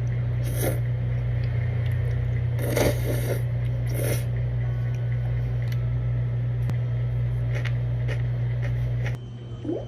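A person eating: a few crunchy bites and chewing, over a steady low hum that stops shortly before the end.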